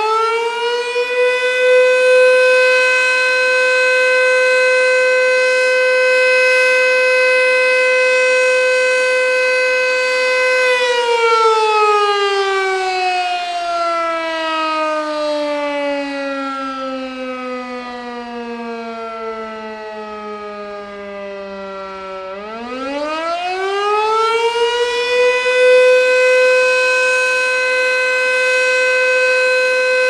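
Elektror S4 (A) electromechanical siren sounding the fire-alarm signal. It holds its high tone of about 510 Hz, then slides down steadily for about ten seconds once the motor is cut, then climbs back up to the high tone and holds it again. The rotor turns the wrong way because the siren was wired incorrectly, so it falls short of its full speed and loudness.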